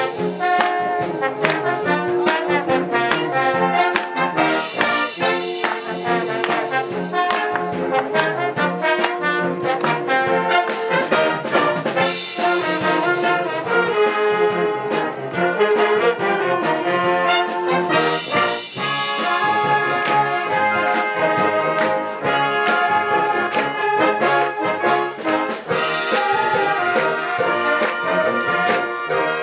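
Wind band music led by trombones and trumpets, with percussion hits keeping time; about two-thirds of the way through it moves into more sustained chords.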